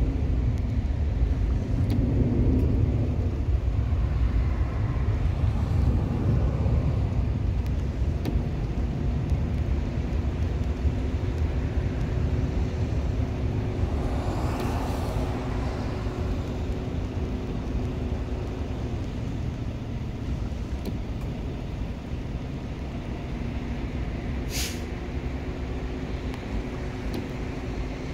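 Steady low outdoor rumble with a constant hum. A car drives past about halfway through, and a brief high chirp sounds near the end.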